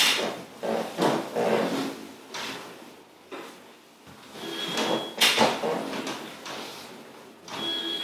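Creaks, rubs and knocks from a chiropractic table and the patient's body during a lower-back manipulation. A short high squeak comes about five seconds in, followed by a sharp knock, the loudest sound.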